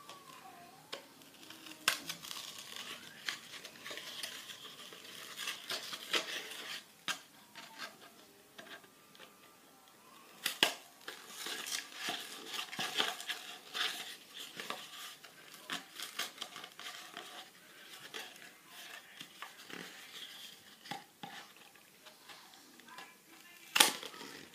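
Scissor points being pushed into a cardboard tube and twisted round to bore holes: scratchy cardboard crunching and scraping with scattered clicks, and a few sharper clicks, the loudest near the end.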